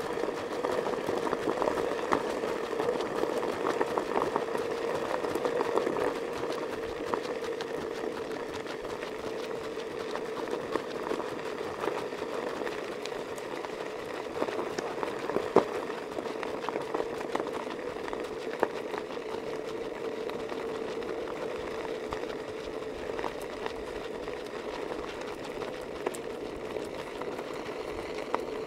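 Vehicle moving slowly along a rocky gravel road: a steady motor hum with scattered ticks and knocks from stones under the tyres, and one sharper knock about halfway through.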